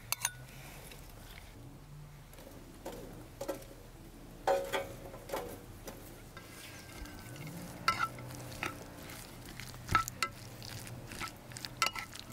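A spoon stirring and mixing a mayonnaise-dressed shredded chicken salad in a ceramic bowl, with scattered sharp clinks of the spoon against the bowl.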